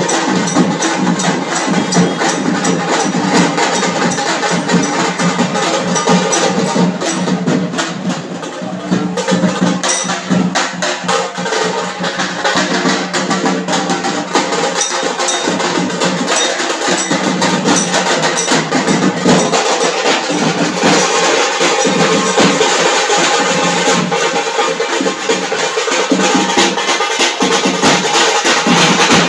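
A band of large drums beaten fast with sticks, a dense loud rhythm of sharp strokes over a steady low tone.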